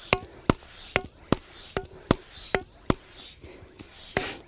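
Hand pump inflating an inflatable stand-up paddleboard, giving a sharp click about two and a half times a second as it is worked. The board is past simply filling and is being pumped up to pressure against growing resistance.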